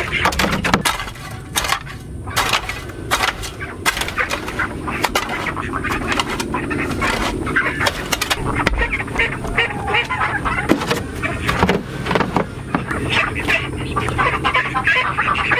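Metal shovel blade scraping and chopping into dirt in short repeated strokes, with ducks calling.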